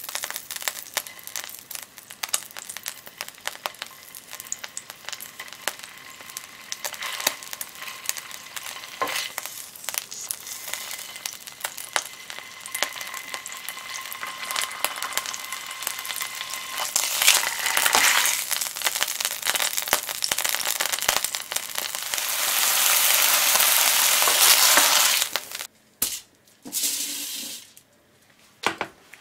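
Block of beef round searing in hot lard in a frying pan: steady sizzling with constant small pops and spits. It grows louder and denser near the end, then cuts off abruptly.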